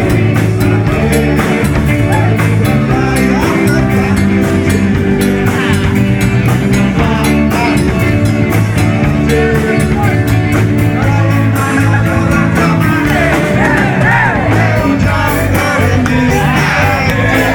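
Live band music with electric guitar, bass, keyboard and drums, with men singing into microphones over a PA system. The music is loud and steady throughout.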